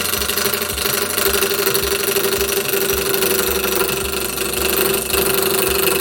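Spindle gouge cutting into a wooden platter blank spinning on a small bench lathe at about 750 RPM: a loud, steady cutting noise with a rapid even ticking and a steady hum under it, as the blank is faced off and trued round.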